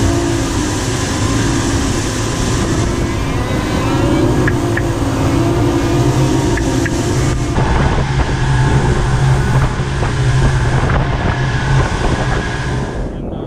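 Twin 250 hp outboard motors running under way at speed, a steady drone mixed with wind and water rushing past the hull. The sound changes abruptly about halfway through and again just before the end.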